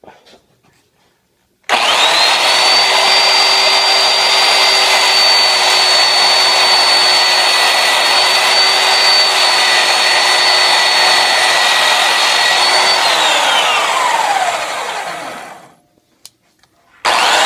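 Bench-top belt sander switched on, its motor and sanding belt running steadily with a high whine. Near the end it is switched off and winds down, its whine falling in pitch until it stops, then it is started again.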